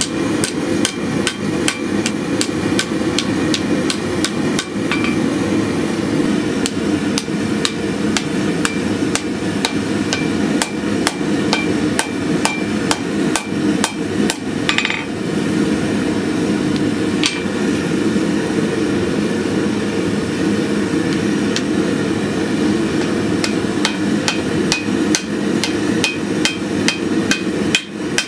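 Hand hammer blows, about three a second, on a small piece of red-hot damascus steel held in tongs on an anvil as it is forged into a sword's habaki, with a brief ring from the anvil after many strikes. A steady low roar runs underneath.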